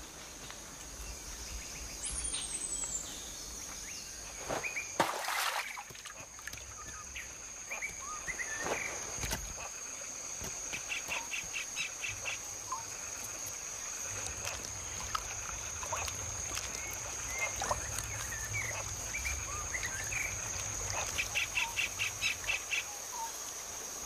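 Tropical forest ambience: a steady high-pitched drone with scattered short bird chirps and calls, and two brief rapid trills, about halfway and near the end.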